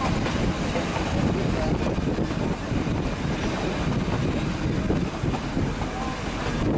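Steady low rumble of a metre-gauge mountain railway train running, with wind buffeting the microphone.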